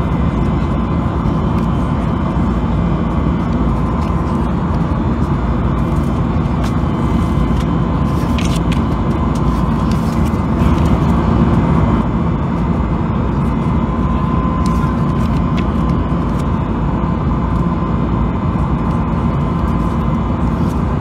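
Steady cabin noise inside an Airbus A320neo airliner in flight, a constant low rush of engines and airflow with a faint steady hum. Paper magazine pages rustle as they are turned, most clearly about halfway through.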